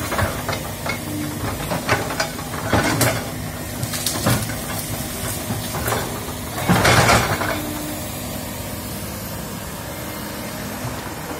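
Komatsu hydraulic excavator's diesel engine running steadily while its bucket pushes through scrub, with branches and brush cracking and crashing several times, loudest about seven seconds in.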